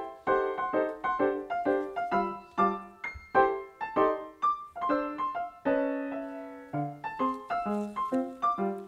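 Background piano music: a light tune of quick struck notes, with one chord held for about a second around six seconds in.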